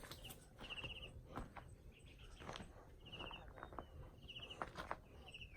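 Faint repeated chirps from a small animal: short pulsed calls about once a second, with scattered light clicks and rustles.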